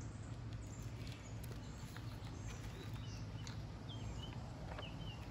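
Quiet backyard ambience: a steady low hum with a few faint, short bird chirps in the second half, and the soft rustle of a picture book's paper pages being turned.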